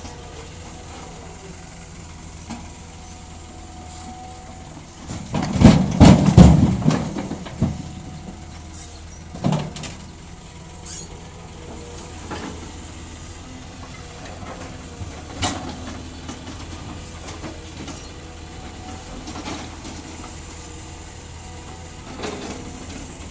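Cat hydraulic excavator's diesel engine running steadily while its bucket works a rocky slope. About five seconds in, a loud rumbling crash of rocks lasting two to three seconds, then a few smaller knocks of stone.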